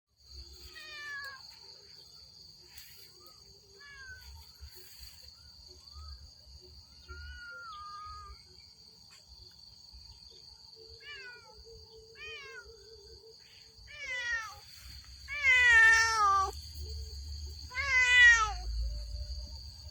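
A house cat meowing again and again, each meow a short call that falls in pitch; the meows grow louder toward the end, with the two loudest about three-quarters of the way through.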